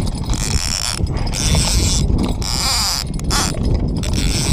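A man breathing hard in repeated hissy gasps, out of breath from fighting a large carp, with wind rumbling on the microphone.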